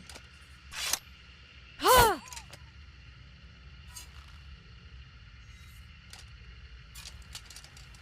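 Katana blade swung through the air. A short whoosh comes about a second in, and a louder swish about two seconds in has a brief whistle that rises and falls in pitch. Faint clicks follow.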